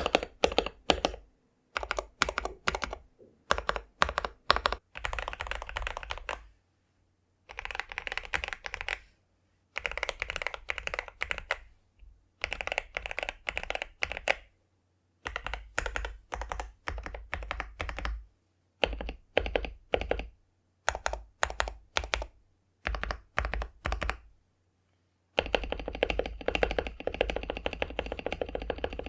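Typing on a mechanical keyboard with Akko CS Jelly Black linear switches, a KBD67 Lite R4 board and cherry-profile PBT keycaps. Short bursts of rapid keystrokes alternate with brief silences, ending in a longer, denser run of fast typing.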